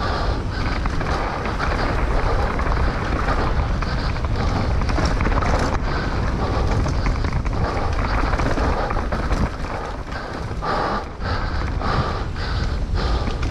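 Wind buffeting the microphone over the clatter of a mountain bike riding fast down a rough dirt trail: a steady low rumble with frequent knocks and rattles as it hits bumps.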